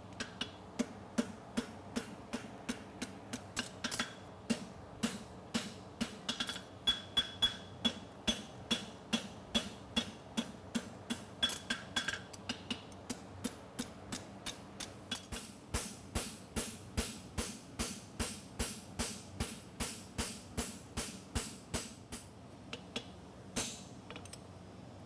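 Hand hammer striking a hot steel horseshoe on an anvil in a steady rhythm, about three blows a second, with the anvil ringing; the blows stop shortly before the end after one last strike.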